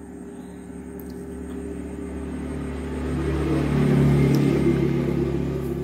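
Engine of a passing motor vehicle, a steady pitched hum that grows louder over about four seconds and then eases off slightly.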